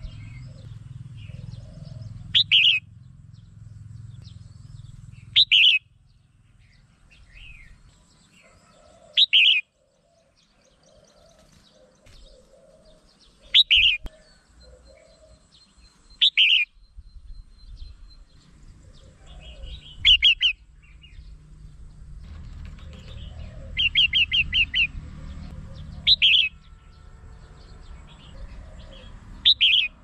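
Red-whiskered bulbul calling: short, loud, bright phrases that repeat every three to four seconds, with a quick run of several notes a little past the middle and fainter chirps in between.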